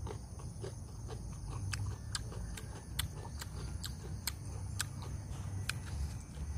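Knife scraping the skin off a young luffa gourd: a run of short scraping strokes, about two a second, mixed with sharper clicks.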